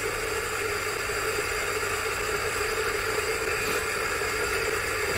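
Commercial coffee grinder's electric motor running steadily, grinding oats on a fine espresso setting: a constant, even whir.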